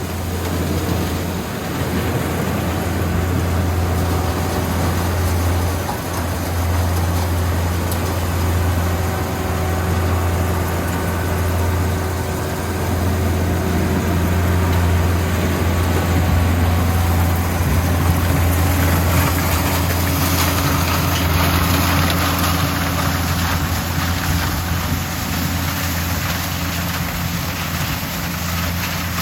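Yanmar YH700M combine harvester running steadily, with a constant low engine hum under the machinery.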